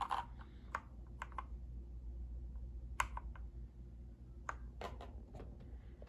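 Keys on a mechanical keyboard being pressed one at a time: about a dozen irregular clacks, the sharpest about three seconds in.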